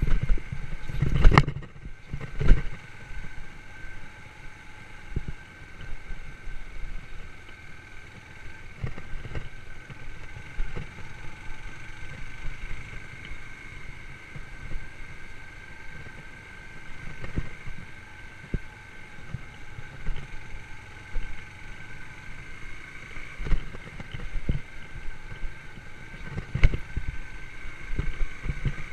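Yamaha YBR125 motorcycle's single-cylinder engine running steadily on a ride, with a steady whine over a low rumble. Scattered knocks and thumps break in, the loudest about a second in and again near two and a half seconds.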